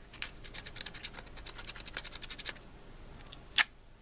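Masking tape crackling as it is pressed onto and peeled off a resin model to lift dried masking fluid, a dense run of small scratchy clicks, then one short sharp rip about three and a half seconds in.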